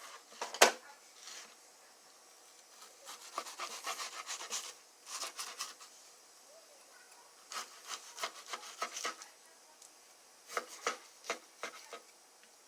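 Kitchen knife cutting raw chicken breast into chunks on a cutting board: bursts of quick sawing strokes with the blade tapping the board, and one sharp knock about half a second in.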